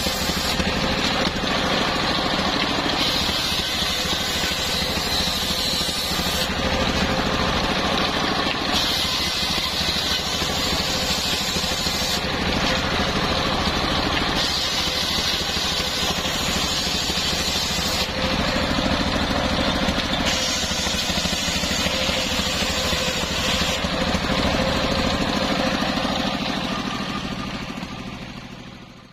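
Stationary single-cylinder diesel engine running steadily, driving a belt-driven table circular saw whose blade rips through waru-wood planks. The cutting noise shifts every few seconds as boards are fed through, and everything fades out near the end.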